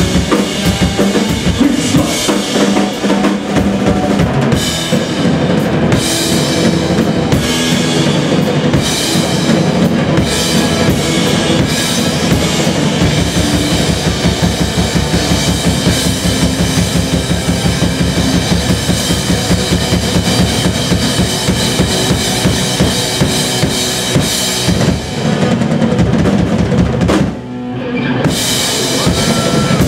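Live rock band playing loud, with drum kit (bass drum, snare and cymbals) driving under distorted electric guitars and bass through amplifiers. Near the end the sound briefly drops back before the full band comes back in.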